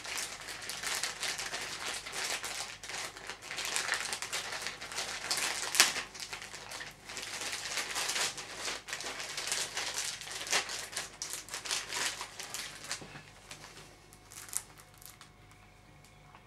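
White mailing envelope rustling as it is pulled open by hand and a CD is drawn out, with one sharp snap about six seconds in. The handling dies down over the last few seconds.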